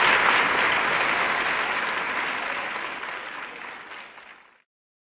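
Large audience applauding, the clapping fading steadily and then cutting off abruptly about four and a half seconds in.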